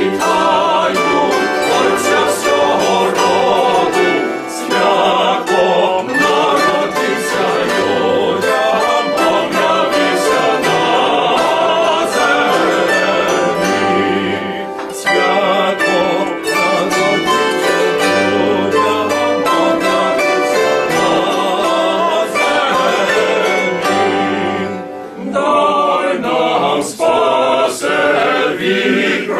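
A choir of carolers singing in harmony, pausing briefly twice between phrases.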